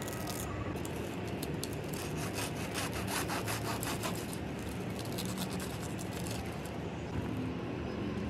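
A kitchen knife sawing through the crisp fried crust of a veg bread roll: a dense run of crunching crackles from about a second in until past six seconds.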